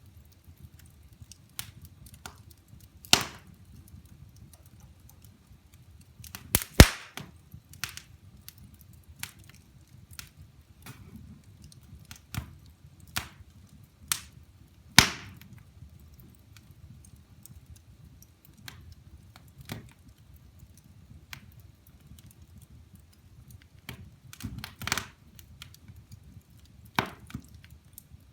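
Firewood burning in a fireplace, crackling irregularly with sharp pops over a low steady rumble of the flames. Several pops stand out, the loudest about seven seconds in and about fifteen seconds in.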